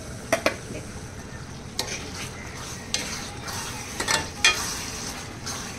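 Green keema (minced meat) sizzling in a pan as a spoon stirs it, with a handful of sharp knocks and scrapes of the spoon against the pan.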